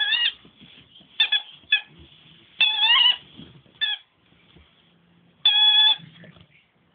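Dog giving high-pitched squeaky whines in place of barks: about six short squeaks, some bending up and down in pitch, and a longer steady one about five and a half seconds in.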